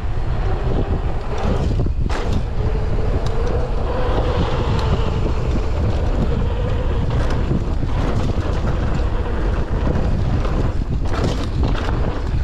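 Wind buffeting the microphone of a camera on a moving mountain bike, with tyre rumble underneath and a faint steady whine through the middle. A few knocks near the end as the bike rolls onto a rougher dirt track.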